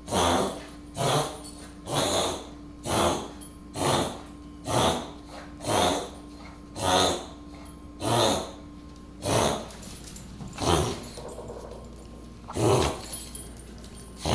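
A pet sneezing over and over, about a dozen sharp sneezes roughly one a second, the gaps growing longer toward the end.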